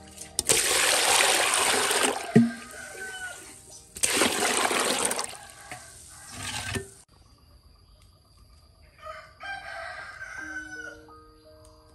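Water pouring and splashing into a large glazed clay basin, in two loud spells of a second or two each and a shorter one after. A rooster crows a few seconds later.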